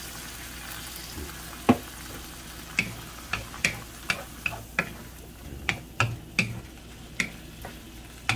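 Wooden spatula stirring meat in a nonstick wok, knocking against the pan in sharp, uneven taps about two or three times a second from about three seconds in, with one louder knock before that. The meat and the liquid in the pan sizzle steadily underneath.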